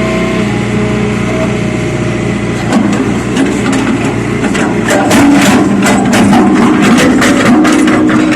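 Backhoe's diesel engine running steadily at close range. From about three seconds in, a quick, uneven series of clanks and knocks sounds over it as the machine works.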